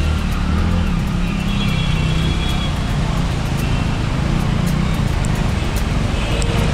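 Steady road noise from riding a motorbike through slow traffic on a rain-soaked road: a low engine and wind rumble with the hiss of surrounding vehicles on the wet street.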